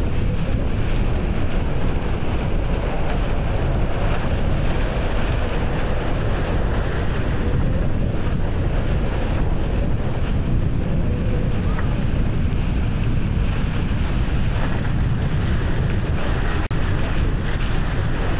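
Strong wind buffeting the action camera's microphone over the steady rush and hiss of water spraying off the hulls of a Tornado catamaran sailing fast, at around 30 km/h.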